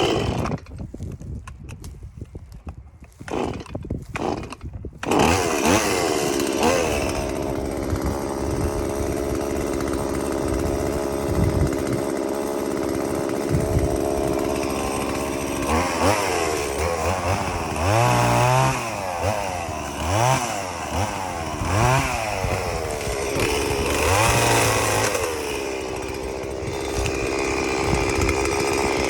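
Stihl MS 170 two-stroke chainsaw: a few knocks, then it starts about five seconds in and runs, revving up and down several times in the second half before settling back to a steady run.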